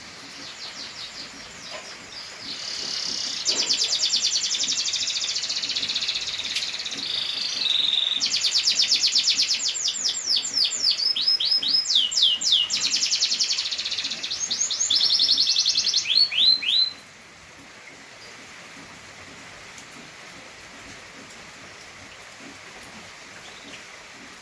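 Domestic canary singing a long, fast song of rapid trills and repeated rolling notes, stopping abruptly about two-thirds of the way through. After that only a steady hiss remains.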